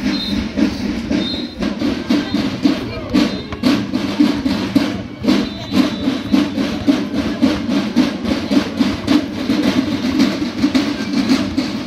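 Music with drums and other percussion keeping a steady beat.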